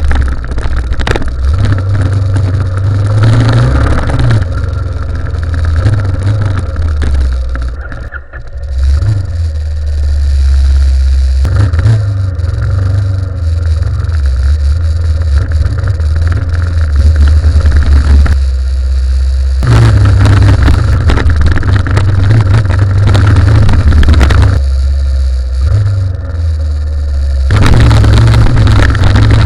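Motorcycle being ridden on a dirt road: engine running with its note rising and falling, under heavy wind rumble on the microphone.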